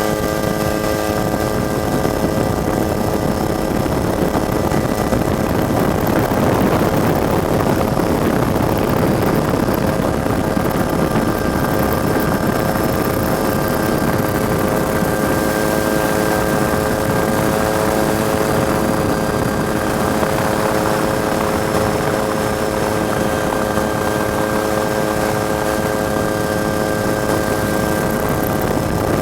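Helicopter running steadily: a constant drone of engine and rotor, several fixed tones held at one pitch over a dense rushing noise.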